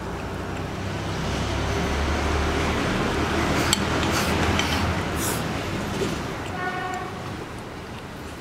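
A low rumble, like a vehicle passing, swells over the first few seconds and then fades, with a few light clicks of chopsticks against a porcelain rice bowl. A brief pitched tone sounds about seven seconds in.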